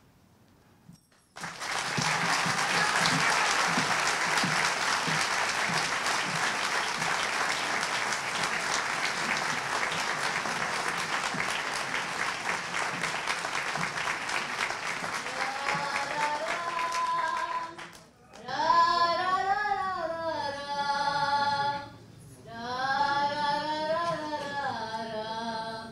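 Audience applauding steadily for about sixteen seconds after a short silence, fading out as a solo voice starts singing. The voice then sings two long, slow phrases with no instruments heard.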